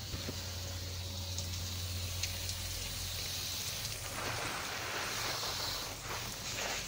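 Garden hose running, a steady hiss of spraying water, growing louder and rougher from about four seconds in.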